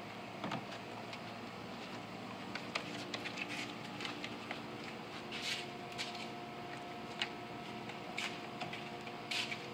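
Propane stove burner hissing steadily under a griddle, with scattered light clicks and taps of cooking utensils, a couple of sharper ones about five and nine seconds in.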